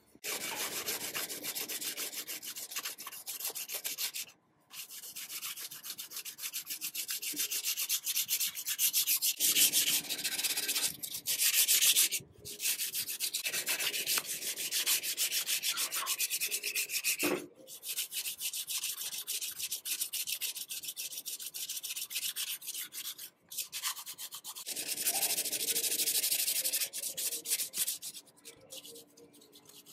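Sanding sponge rubbed by hand back and forth over the paint on an antique sewing machine's cast-iron body, a fast scratchy scrubbing. It stops briefly about four times.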